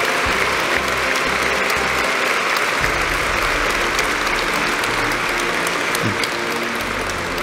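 A large crowd of standing guests applauding steadily, easing off slightly near the end.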